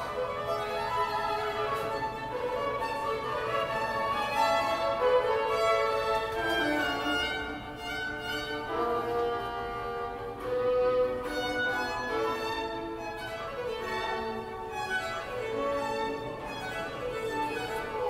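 Violins played live by street musicians: at least two bowed violins carrying a melody together, with some sliding notes.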